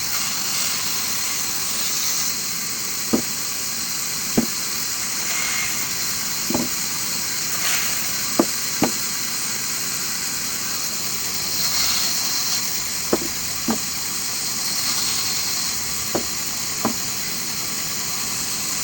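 Wood-cutting machine running with a steady high hiss, broken by about nine sharp, irregular knocks.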